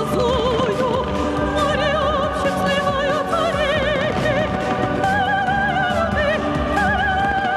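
Operatic-style singing with strong vibrato over an orchestral accompaniment, played loud for the show.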